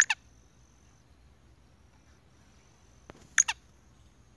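Black francolin giving short, harsh double call notes, each pair quickly falling in pitch. One pair comes right at the start and another about three and a half seconds later.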